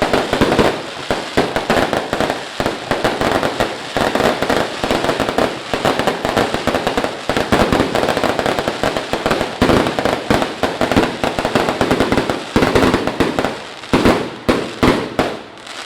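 Fireworks going off in a dense, continuous barrage of rapid bangs and crackles, thinning into fewer, separate bangs near the end.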